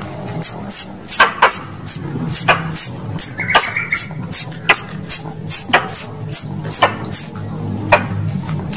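Squirrel lure call: a rapid series of sharp, high-pitched chirps, each falling in pitch, about two or three a second, over a low steady hum.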